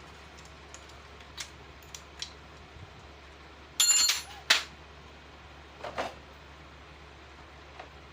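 Scattered metallic clicks and taps of hand tools and engine parts being handled, with one louder ringing metal clatter about four seconds in, a sharp knock just after it, and another knock near six seconds.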